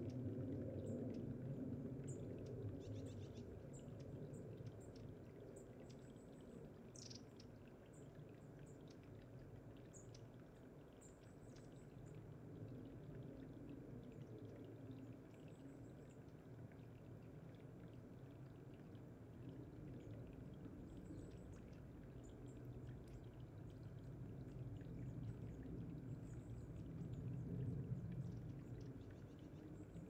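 Spring water trickling over mossy stone steps, a faint steady gurgle. Thin, very high-pitched calls of small birds come scattered through the first twelve seconds and again after about twenty seconds.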